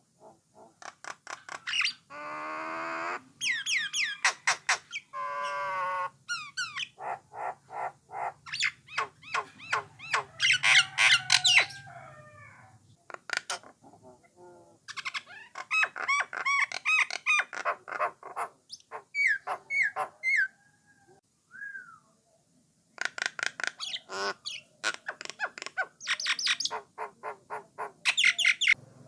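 A jalak nias (jalak coklat) singing a varied song of rapid repeated notes, gliding whistles and harsh squawks, broken by one short pause about three-quarters of the way through.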